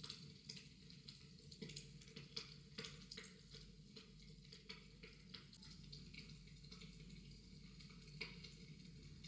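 Faint, irregular small clicks and taps, a few a second, over a low steady room hum.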